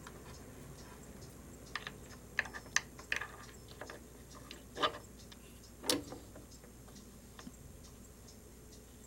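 Small hard parts being handled on a workbench: a quick run of light clicks and taps, then two louder knocks about a second apart.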